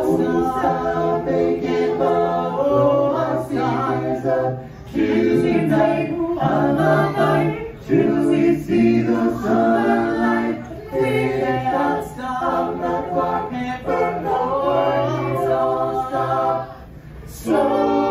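Five-man barbershop-style a cappella group singing in close harmony: long held chords, with short breaks between phrases.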